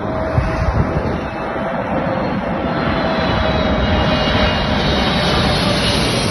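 Fixed-wing aircraft on landing approach: steady engine and airflow noise with a faint steady whine, a few short knocks about half a second in, growing a little louder about halfway through.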